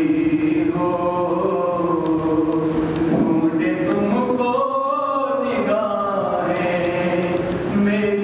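A man chanting a slow, melodic recitation, holding long notes that bend up and down.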